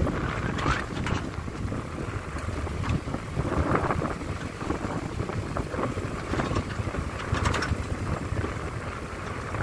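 Wind rushing and buffeting over the microphone of a moving vehicle, gusting up a few times, over a low rumble of engine and road noise.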